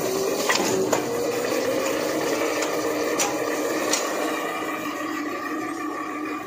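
Masking-film winding machine running, a steady mechanical hum with a few sharp clicks.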